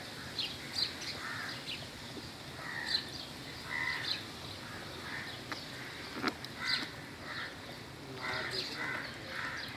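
Birds calling in a run of short, repeated calls, some close together, with a single sharp click a little past halfway.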